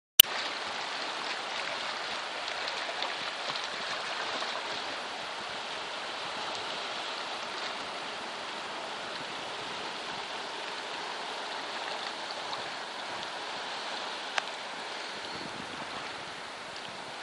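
Steady hiss of shallow sea water splashing and lapping, with a sharp click at the very start and another single click about fourteen seconds in.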